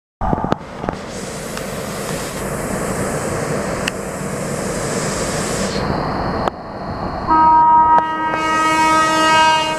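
Steady train noise at a station, then a locomotive's multi-tone horn sounds loudly for about two seconds, starting about seven seconds in.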